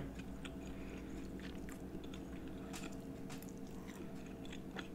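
Close-miked chewing of a mouthful of tender beef pepper steak: faint, soft wet mouth clicks and smacks, over a steady low hum.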